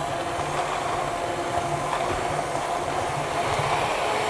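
Electric hand mixer with dough hooks running steadily in a glass bowl, working cold butter pieces into flour and sugar for shortcrust pastry.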